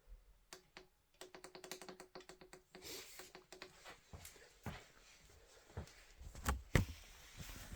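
A quick run of light clicks, about ten a second, for a second and a half, then scattered single knocks and taps, the sharpest near the end.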